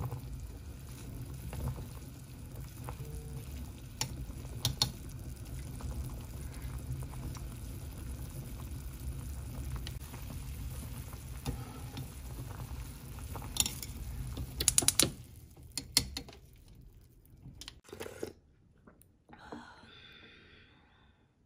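Ramyeon noodles boiling in a stainless-steel pot, with wooden chopsticks stirring and now and then clicking against the pot. About fifteen seconds in there is a quick run of loud taps, and after it the bubbling stops and it goes much quieter.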